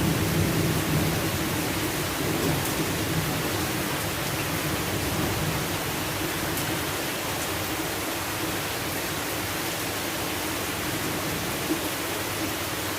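Steady rain falling as an even hiss, with the low rumble of thunder dying away over the first couple of seconds.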